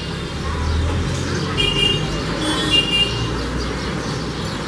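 House sparrow chirping, about three short chirps around the middle, over a steady rumble of road traffic.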